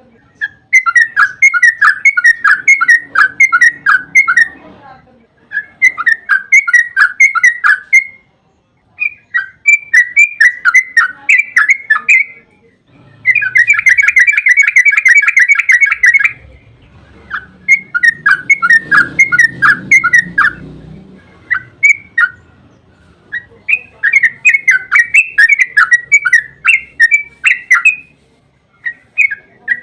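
Yellow-vented bulbul (trucukan) singing long, rapid chattering phrases of quickly repeated notes with short pauses between them. About halfway through it gives one dense, unbroken trill about three seconds long.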